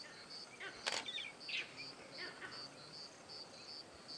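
Insect chirping steadily in high, evenly spaced pulses, about three a second. A single sharp click sounds about a second in.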